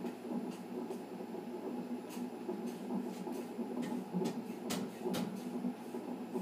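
Fetal heart Doppler sound from a Philips fetal monitor's speaker: the baby's heartbeat as a fast, pulsing whoosh at about 136 to 140 beats a minute. Two sharp clicks come a little after halfway.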